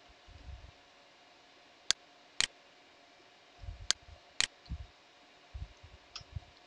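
A few sharp clicks from a computer keyboard, in two pairs about half a second apart, among soft low thumps.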